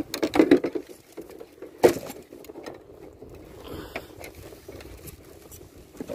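Handling noises: one sharp knock a little under two seconds in, then faint clicks and light rattles as a fishing lure and its hooks are handled by hand.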